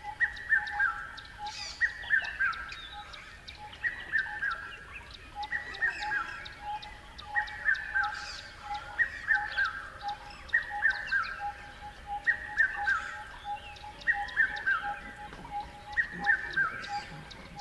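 Birds chirping: a short phrase of quick falling whistled notes repeats about once a second over a steady, evenly pulsing lower note, with faint high ticks.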